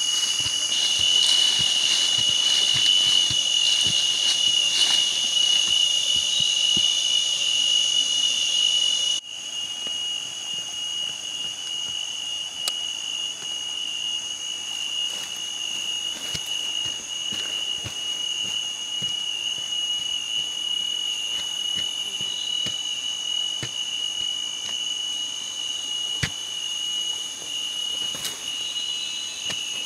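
Forest insects droning steadily in a high, unbroken whine, which drops in level about nine seconds in. Over it, soft scrapes and small clicks of digging in loose soil with hands and a stick.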